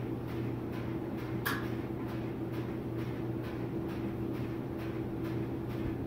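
Gas furnace running with its newly replaced draft inducer motor: a steady mechanical hum with a faint, regular ticking. One sharper click comes about a second and a half in.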